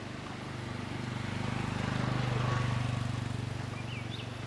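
A motor engine's low, steady hum passing by, growing louder to a peak about halfway through and then fading.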